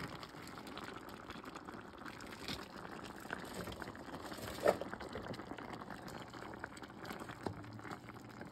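Curry broth boiling in a pot of chicken and baby carrots: a steady bubbling with many small pops, and one sharper tap about halfway through.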